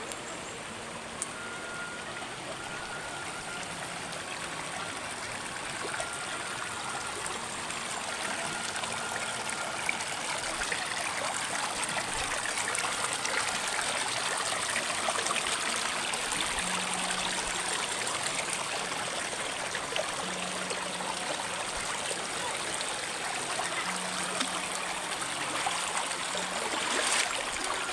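Shallow river running and trickling over stones, a steady rush of water that grows somewhat louder partway through. A short sharp sound comes near the end.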